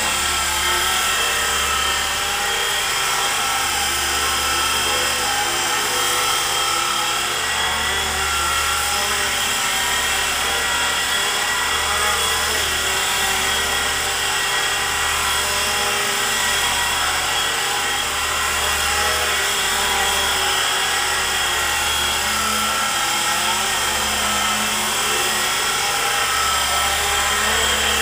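E-flite SR120 micro electric RC helicopter flying: a steady, high-pitched whine of its small electric motors over the rotor buzz, with a low rotor thrum that swells and fades every second or two as it manoeuvres.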